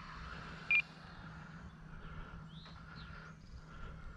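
Faint open-air ambience with a steady low hum and a few brief bird chirps, broken by one short, sharp electronic beep about three-quarters of a second in.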